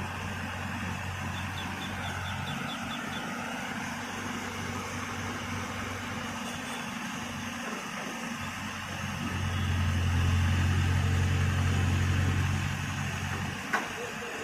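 Hydra crane's diesel engine running steadily, revving up and holding higher for about three seconds in the second half before dropping back. A single sharp click near the end.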